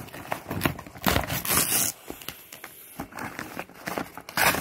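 Parcel packaging crinkling and rustling as it is opened by hand, with scattered small crackles and two louder bursts of rustling, one about a second in and one near the end.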